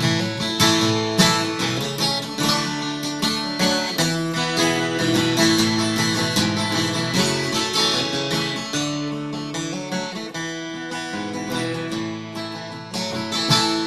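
Acoustic guitar picked and strummed alone: an instrumental break in a folk song.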